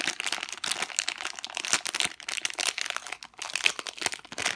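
Squishy toy's plastic packaging crinkling and crackling as it is handled, in irregular rustles.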